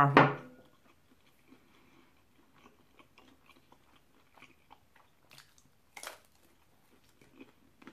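A strip of bacon bitten with one sharp crunch about six seconds in, among faint clicks and chewing sounds.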